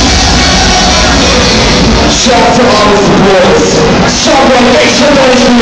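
Loud DJ-set music playing over a club sound system, recorded very hot on a phone. A sung vocal line with a wavering pitch comes in about two seconds in.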